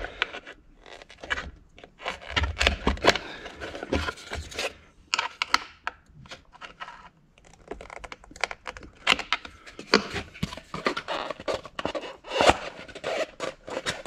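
Plastic scraping, creaking and clicking as a 2011 Audi Q7's front blower motor is pried with a screwdriver and wiggled loose from its plastic housing and foam mounting legs. The sounds come in an irregular string of rubs and sharp knocks, with one of the sharpest strokes near the end.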